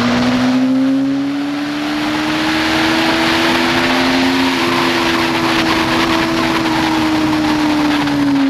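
2007 Yamaha FZ6n's 600 cc inline-four engine, fitted with a Leo Vince aftermarket exhaust, running hard at high revs. Its pitch climbs slowly until about halfway, holds, then eases off near the end. Wind rushes over the microphone throughout.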